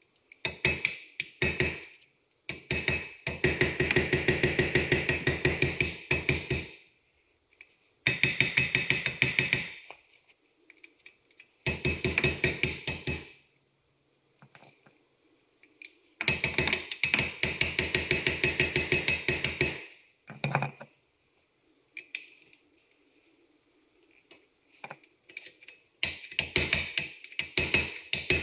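Rapid hammer blows on metal, struck in bursts of one to four seconds with short pauses between them, as when driving out wheel studs or knocking free a brake disc.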